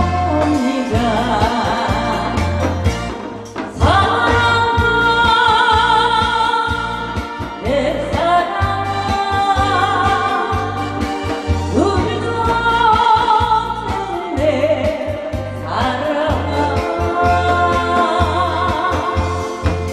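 Korean trot song sung live over a backing track, long held notes with vibrato over a steady thudding bass beat.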